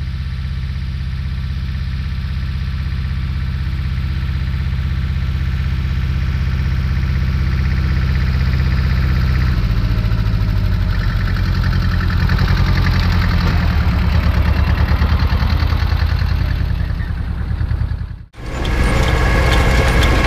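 Tractor engine running steadily while pulling a seed drill, getting louder as it approaches. After a sudden cut near the end, the engine is heard up close with the seed drill's metering mechanism rattling and clicking.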